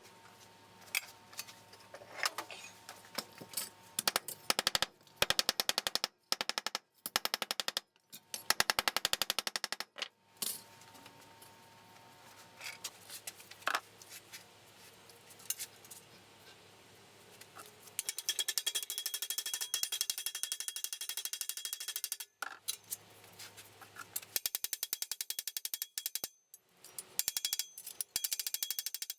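Bursts of a rapid-fire metalworking tool on car body sheet metal, each one to four seconds long with short pauses between.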